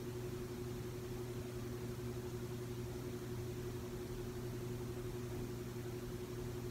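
Room tone: a steady low hum with a faint hiss, unchanging throughout.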